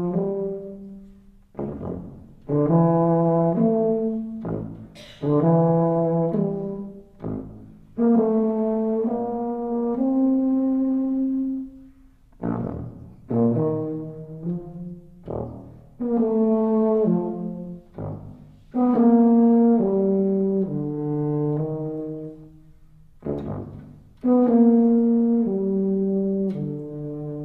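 Solo rotary-valve tuba playing short phrases of held notes that move step by step, each phrase starting loud and fading away, with brief pauses between phrases.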